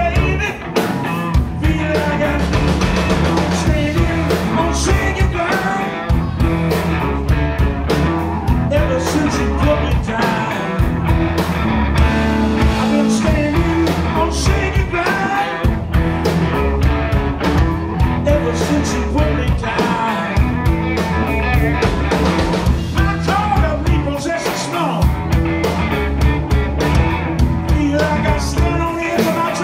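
Live rock-and-blues band playing: electric guitars, electric bass and a drum kit driving a steady beat, with a male lead vocal singing over it.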